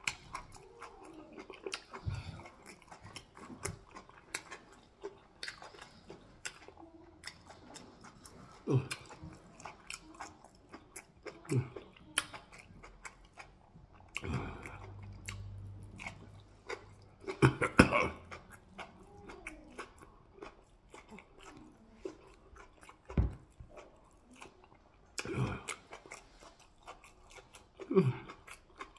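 Close-up wet chewing and lip smacking of a man eating soup-coated meat by hand: many short sharp mouth clicks with a few louder bites, the loudest cluster just past halfway.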